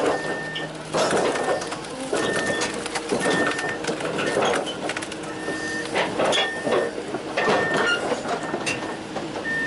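Volvo EC360LC excavator tracking past: its steel crawler tracks clank and squeak in repeated surges every second or so as the track plates roll over the idlers.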